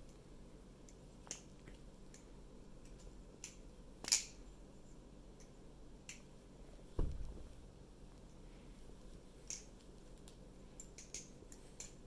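Glidr Sahara clone balisong being flipped: scattered light clicks of the handles swinging on the pivots, a sharper click about four seconds in, and a dull thump about seven seconds in.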